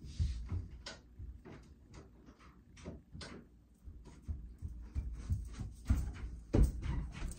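Scattered light knocks, clicks and rustling of someone moving about and handling objects, with a few louder knocks near the end.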